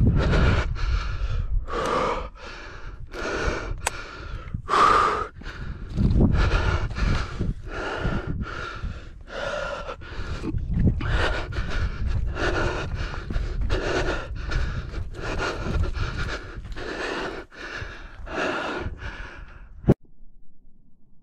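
A person breathing hard and fast, heavy in-and-out breaths about one to two a second, over a low rumble on the microphone; it cuts off abruptly near the end.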